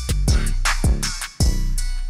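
Background music with a drum-machine beat: sharp drum hits over a deep bass line that cuts out briefly about every second.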